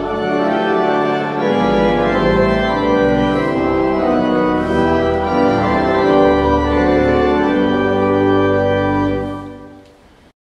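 1931 Whitelegg-Möller three-manual, 18-rank pipe organ playing the closing chords of a hymn over deep pedal bass notes. The final chord is held, then fades away about nine seconds in.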